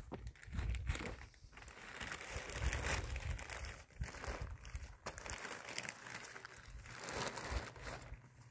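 Irregular rustling and crinkling in uneven bursts, with a low rumble underneath.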